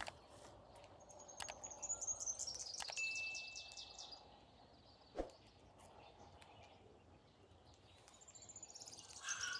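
Birds singing in the background: a run of rapid high chirps about a second in, one steady whistled note near the middle, and another chirping phrase near the end. A few sharp clicks, the loudest about five seconds in.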